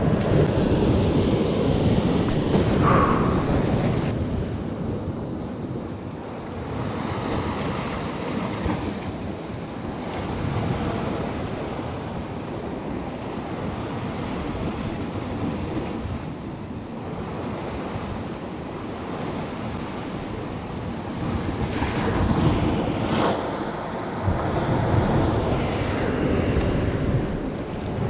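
Sea surf washing against a rocky shore, with wind buffeting the microphone. The wash swells louder at the start and again about three quarters of the way through.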